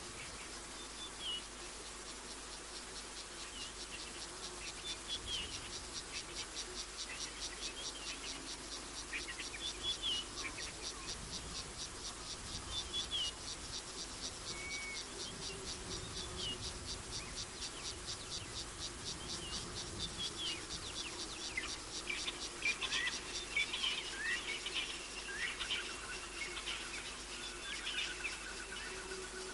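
An insect calling in a fast, even pulsing trill, with scattered short bird chirps over it that grow busier over the last several seconds.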